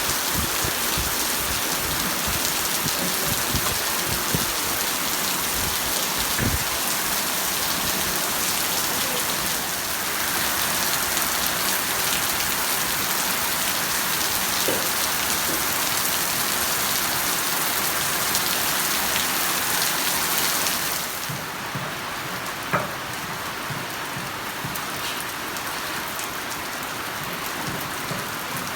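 Steady rain falling, a dense even hiss with scattered drip ticks. It eases somewhat about three quarters of the way through, with one sharp tap soon after.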